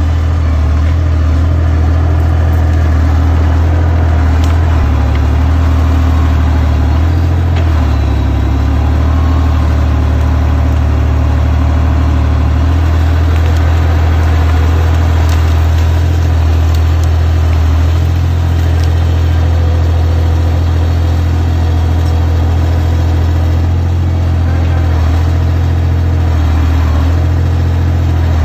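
Liebherr crawler loader's diesel engine running steadily while the machine pushes into brush and stumps with its root rake, a deep drone with small shifts in pitch. Occasional light clicks ride over it.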